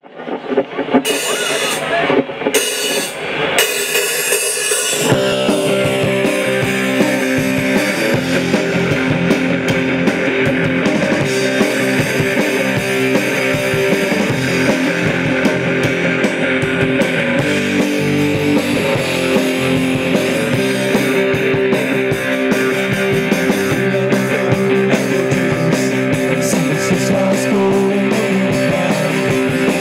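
Live rock band playing electric guitars, bass and a drum kit. It opens with a few separate bursts and short gaps, and the full band comes in about five seconds in and plays on steadily.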